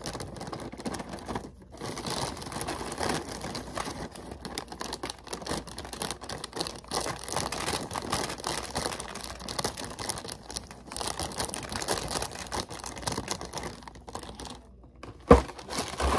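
Plastic liner bag of a cereal box crinkling as cereal is shaken out, with small pieces clattering into a plastic cup. One sharp knock near the end.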